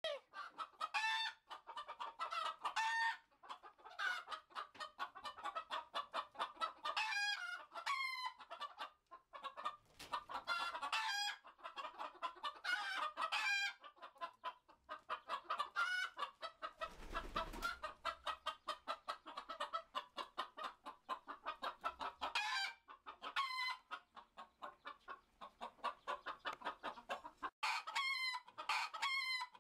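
Roosters clucking and crowing, call after call with short gaps, several calls sliding down in pitch.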